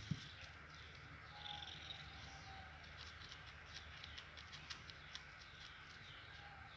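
A cat playing with a tennis ball on a tiled floor: a soft thump at the start, then a run of faint clicks from about three to five seconds in, over a quiet background with faint high chirps.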